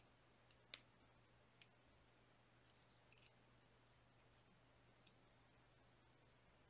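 Near silence: room tone with a steady low hum and a few faint, sparse clicks from handling fine copper wire and tools during wire wrapping.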